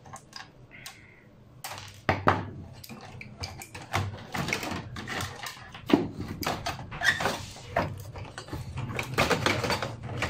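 Irregular clicks, knocks and scraping as a Dell desktop motherboard is worked loose and lifted out of its steel computer case, starting about two seconds in.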